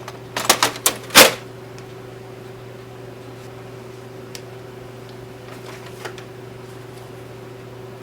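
Plastic parts of an inkjet printer being handled: a quick run of sharp clicks and knocks, the loudest about a second in, then a steady low hum with a faint tick or two.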